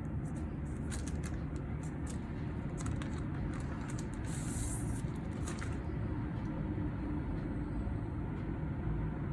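Light clicks and a brief rustle, about four to five seconds in, of a vinyl record and its packaging being handled, over a steady low rumble.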